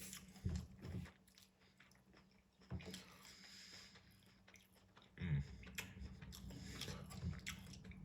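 A person biting and chewing food close to the microphone, with a few louder bite or chew sounds scattered among quieter mouth noises.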